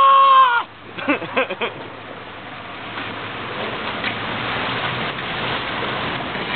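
A man's high-pitched held scream, the loudest sound here, breaks off with a falling drop about half a second in. A few short laughs follow, then steady wind noise and water rushing past the hull of a small sailboat under way.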